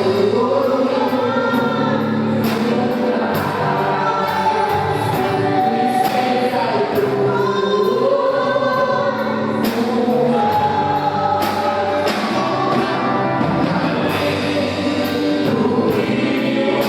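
Church worship group singing a gospel song as a choir, over instrumental accompaniment with a steady beat.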